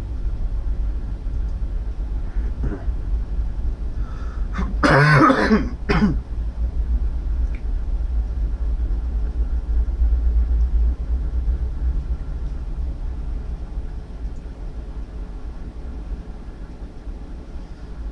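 A man clears his throat harshly once, about five seconds in, over a steady low rumble.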